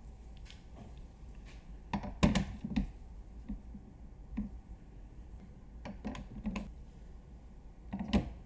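Irregular clicks and knocks of a PC case fan and its packaging being handled, loudest in a cluster a little over two seconds in and again near the end, over a low steady hum.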